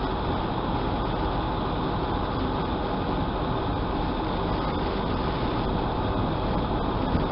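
Steady running noise of a rail maintenance motor car's engine while its loader crane works, with no distinct knocks or changes.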